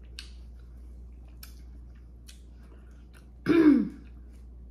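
A woman gives one short, loud cough to clear her throat about three and a half seconds in, its pitch dropping as it ends. Something has caught in her throat while eating a spicy seafood boil.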